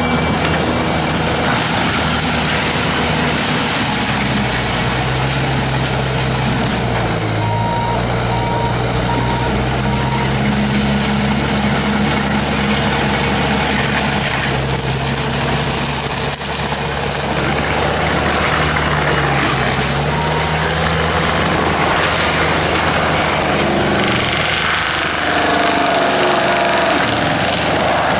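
Bobcat T770 tracked skid steer's diesel engine running hard with the forestry mulcher head spinning and chewing through brush, the engine pitch rising and dipping as it works. A backup alarm beeps several times about seven seconds in.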